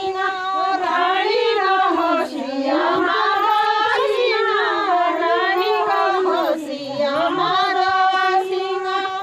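Group of women singing a chanchari folk dance-song from the Uttarakhand hills together, in unison, with long held notes that bend and slide in pitch.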